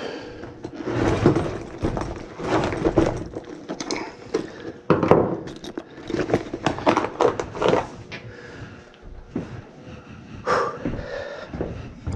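Handling noise of hands and tools at work: an irregular run of clicks, knocks and rustles.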